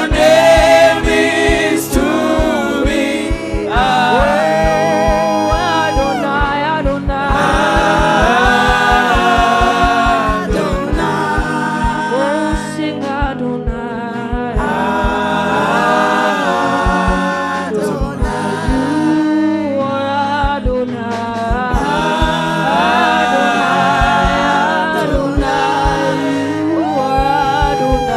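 Gospel worship song: several voices singing a melody over instrumental accompaniment with a steady low beat.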